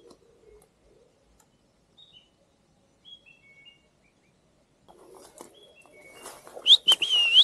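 Small songbirds chirping from the trees in short, high calls. Near the end, a rustling noise rises and a loud whistled call slides up and then wavers.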